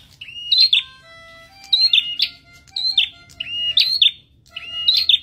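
A caged prenjak kepala merah songbird singing in full voice (gacor). It repeats the same short, high phrase about once a second, five times: a held whistle note, then a higher note that drops sharply.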